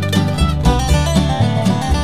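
Acoustic string band playing an instrumental passage with no singing: upright bass notes under plucked mandolin and acoustic guitars, in a bluegrass-country style.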